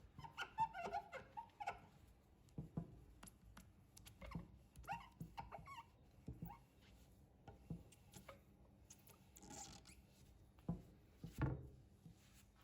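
Objects being handled: scattered knocks and clicks with several short squeaks, and one heavier thud near the end.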